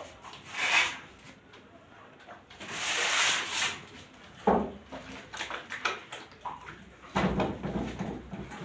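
Wet plaster of Paris being pressed and smeared by hand onto the wire mesh of a false ceiling, heard as irregular scraping rubs. There is a sharp knock about four and a half seconds in and a duller thump near the end.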